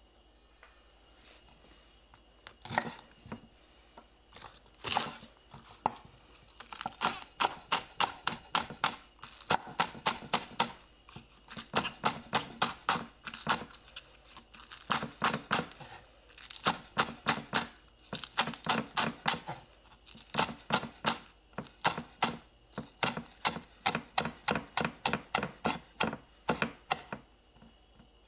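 Kitchen knife slicing green onions on a wooden cutting board. A couple of single knocks come in the first few seconds, then quick runs of chopping strokes, about three or four a second, with short pauses between runs.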